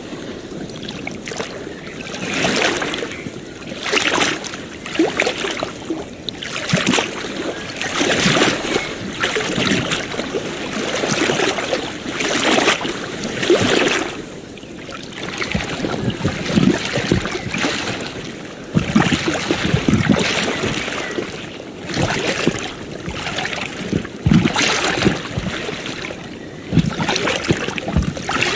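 Ocean waves washing onto a shore: a continuous rush of surf that swells and falls back every second or two.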